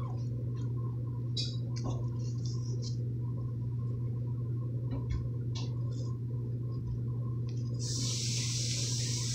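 Kitten moving and scratching in a litter box of pellet litter: scattered light clicks and rustles of the pellets over a steady low hum. A steady hiss starts suddenly near the end.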